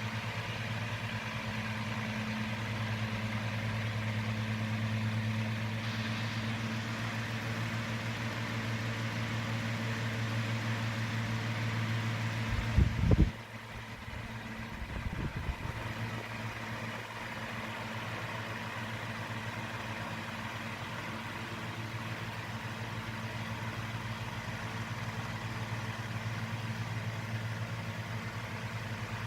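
Hawkins 12-inch oscillating table fan running, with a steady electric-motor hum under the rush of its blades. About halfway through come a few loud knocks, after which the hum is fainter.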